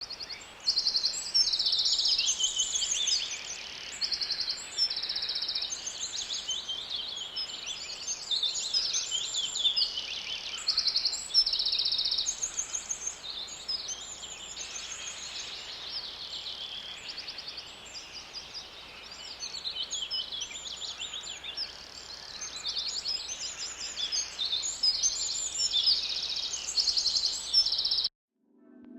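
Several birds singing together in a dense chorus of high chirps and rapid trills, cutting off abruptly near the end.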